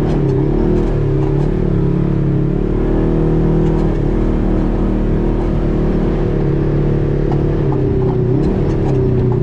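Side-by-side UTV engine running steadily while driving a rough dirt trail, its pitch dipping and rising a little with the throttle. A few faint clicks come through now and then.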